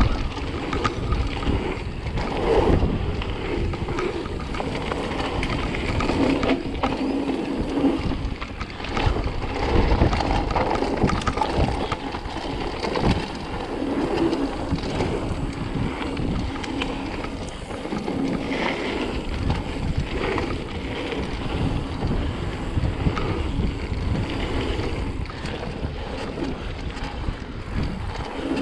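Wind buffeting the microphone, with frequent irregular knocks and rattles throughout.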